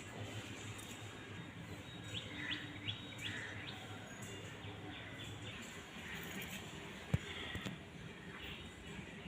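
Birds chirping: a quick run of short, high, falling chirps about two to three seconds in, with fainter calls after, over a steady low hum. A single sharp click about seven seconds in.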